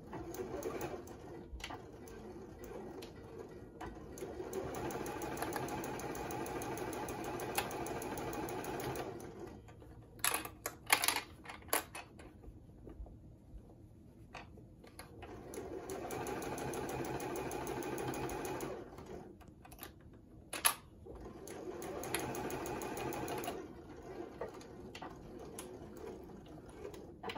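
Juki sewing machine stitching a seam through flannel in several runs, stopping and starting again, with a few sharp clicks between runs.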